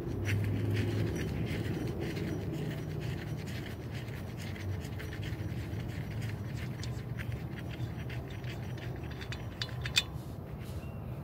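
Belt tensioner pulley spun by hand, its bearing turning with a steady low rumble while the glove scratches against the pulley. A single sharp click about ten seconds in.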